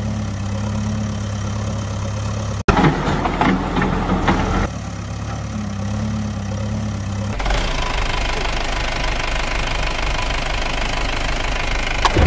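Engine running in several spliced stretches: a steady idling hum, cut off abruptly about two and a half seconds in by a louder, rougher stretch for about two seconds, then the idle again, and a switch to a different, noisier engine sound about seven seconds in.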